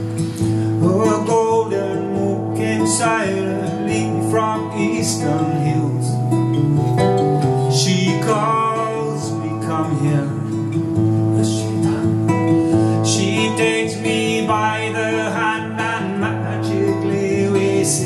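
A man singing a slow song to his own acoustic guitar accompaniment, the guitar playing steadily beneath the voice.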